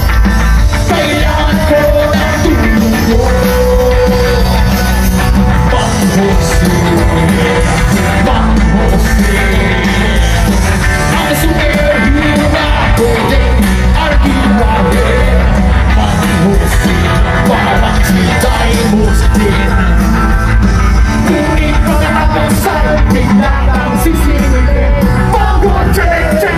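Live rock band playing loud with a lead singer, heard from among the audience.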